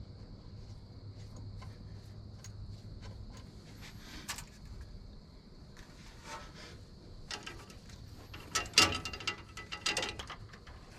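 Hand tools and engine parts being handled during timing chain cover assembly: scattered clicks and knocks, then a denser run of louder knocks and rattles around eight to ten seconds in. A steady hum lies underneath.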